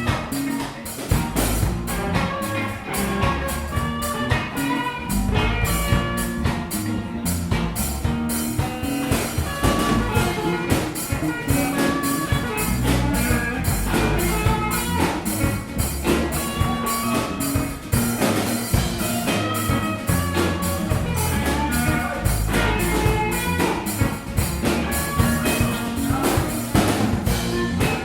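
A small live band playing: a drum kit keeps a steady, busy beat under a low bass line and pitched instruments carrying a melody.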